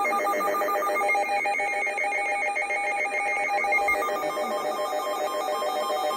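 Electronic emergency weather alert tone: several pitches warbling together in a fast trill, like a telephone ring, held at a steady level.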